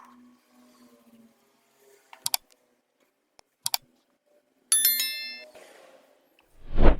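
Small hard objects being handled: two quick pairs of sharp clicks, a bright metallic clink that rings briefly, then a louder thump near the end.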